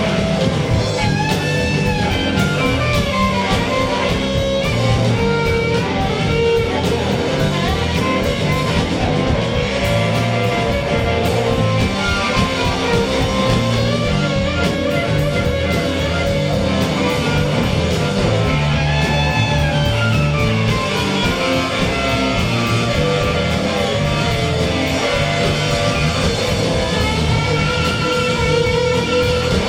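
Live rock band playing, with guitar leading and lines bending up and down in pitch over bass and drums.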